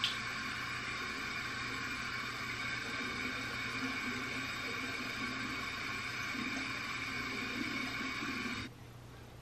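Water running steadily from a bathroom tap as a steady hiss, cut off suddenly near the end.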